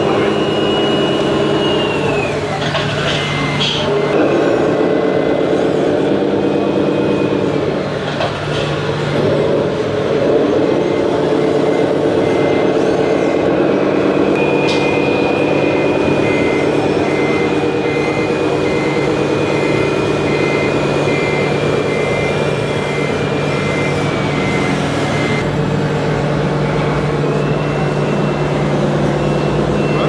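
Sound module of a radio-controlled MAN 8x8 tipper truck: simulated diesel engine rising and falling with throttle, while a reversing beeper sounds in a steady series from about three seconds in until shortly before the end.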